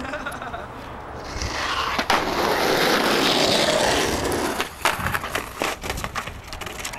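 Skateboard wheels rolling on asphalt, growing louder as the board comes closer, with a sharp clack about two seconds in. Near the end come several clacks and knocks as the board hits the ground and the rider steps off.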